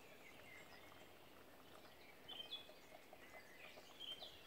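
Near silence with faint bird chirps that come more often from about two seconds in, and a few faint light ticks.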